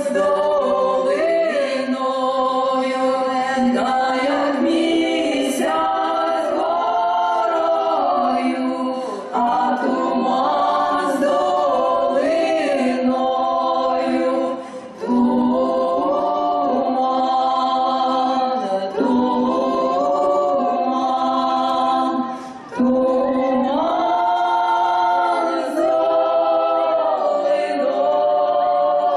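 Women's folk choir singing a song unaccompanied, several voices in harmony, in long phrases with short breaks between them.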